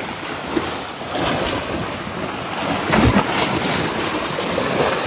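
Sea waves washing and splashing against the rocks of a seawall, with wind buffeting the microphone and a low thump about three seconds in.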